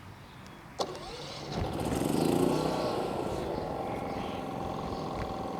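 Westinghouse iGen4500 inverter generator's single-cylinder engine started from about 20 feet away: a click, then the engine catches about a second and a half in and revs up. It settles to a steady, lower running speed in eco mode.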